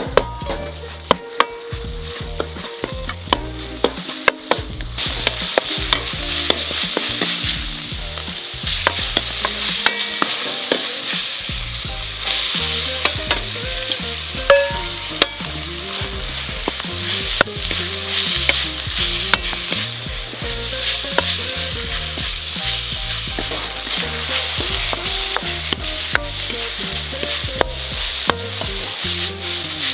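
Food sizzling in a hot pan while it is stirred, with frequent sharp clicks of the utensil against the pan.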